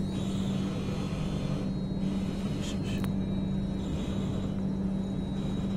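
Electric train running, heard from on board: steady running rumble and track noise under a constant low hum, with a few light clicks near the middle.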